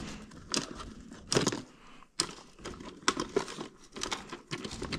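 Hands rummaging through small belongings, crinkling packaging with scattered light clicks.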